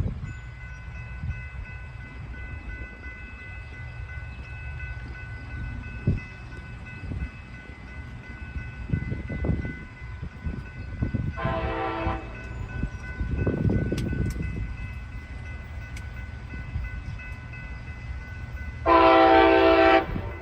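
Air horn of an MBTA HSP-46 diesel locomotive sounding a short blast about eleven seconds in and a longer, louder blast near the end. Both sound over the low rumble of the passing train.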